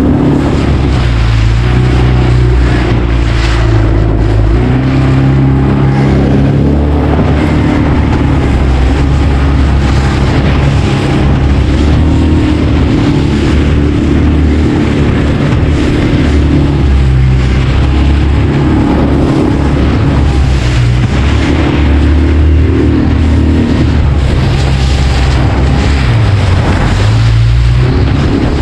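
A small boat's motor running steadily under way, its note rising and falling every few seconds as the boat rides big swells, with wind buffeting the microphone.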